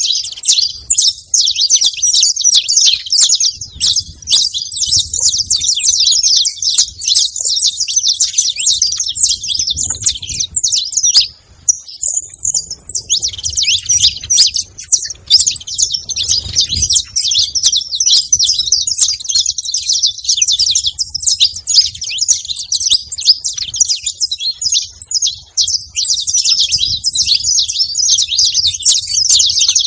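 A flock of saffron finches chirping together in a dense, unbroken chatter of high notes from many birds at once. The chatter thins briefly about a third of the way in.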